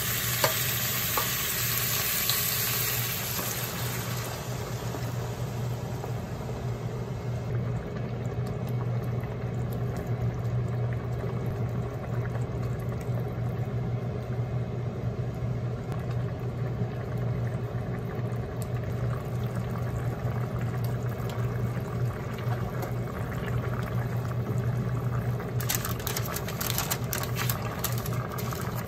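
Daikon and fried tofu sizzling in oil in a frying pan. The sizzle dies down about four seconds in, and the pan settles into broth simmering steadily over a constant low hum. Near the end comes a burst of crinkling as a parchment-paper drop-lid is pressed down onto the simmering pan.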